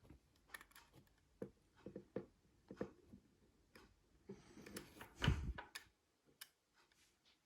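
Faint, scattered small clicks and taps of tweezers and fingertips on small plastic parts as a ribbon cable is worked into its connector on a doorbell circuit board, with one louder low bump about five seconds in.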